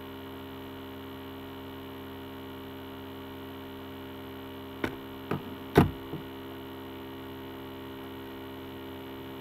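Steady electrical mains hum, a drone of several held tones. About halfway through come four short clicks of a plastic CD case being handled, the third sharply louder than the rest.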